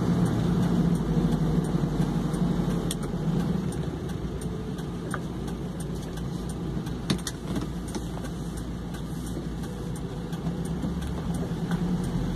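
Engine hum and road noise inside a moving vehicle's cabin, with a few faint clicks and rattles.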